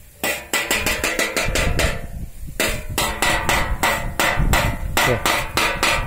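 Homemade wind-driven bird scarer: a plastic-bladed propeller whose striker knocks rapidly against an empty metal cookie tin, several clanks a second, with a brief lull about two seconds in. Wind buffets the microphone.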